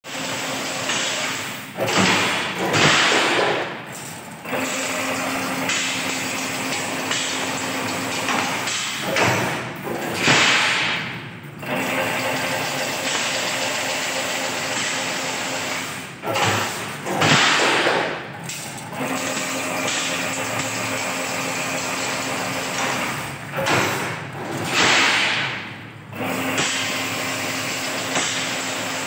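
Automatic chain-link fence weaving machine running through its repeating cycle. A steady motor hum alternates with a louder, noisy mechanical burst of about two seconds, four times, roughly every seven and a half seconds.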